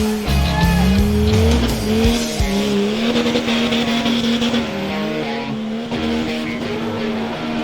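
Off-road 4x4 engine revving hard, held at high revs with a few brief dips, over the noise of the vehicle working through the terrain.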